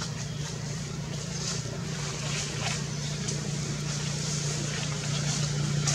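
A steady low engine hum, growing a little louder toward the end, with a few faint short high chirps now and then.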